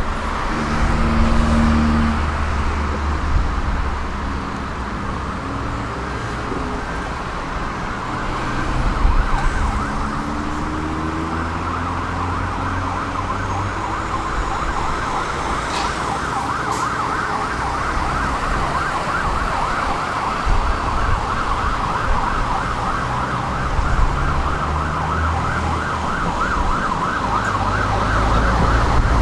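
Road traffic running past, with an emergency vehicle's siren rapidly rising and falling over it for most of the stretch. A tram rolls in near the end.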